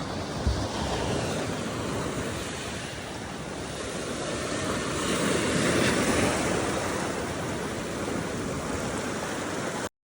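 Sea waves breaking on the shore: a steady rush of surf that swells to its loudest around the middle as a wave breaks, with a brief low bump of wind on the microphone about half a second in. The sound cuts off abruptly near the end.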